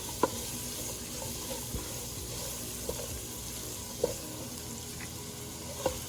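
Onion, garlic, carrots and flour sizzling in melted butter in a pot, with a steady hiss as the roux cooks. A spoon knocks sharply against the pot three times.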